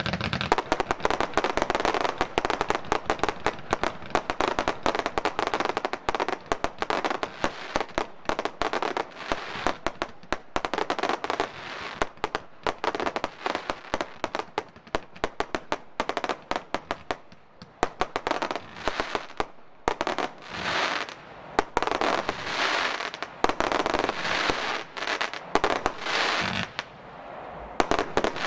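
Consumer (F2) firework battery firing: a dense run of sharp pops and crackle, then from about eighteen seconds in, separate shots roughly once a second, each with a short crackling burst.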